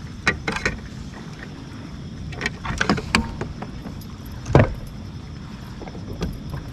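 Scattered clicks, clatters and knocks of gear against a plastic Old Town Sportsman PDL120 kayak as an angler nets a small bass. The loudest is a single hard thump about four and a half seconds in. A steady low rumble runs underneath.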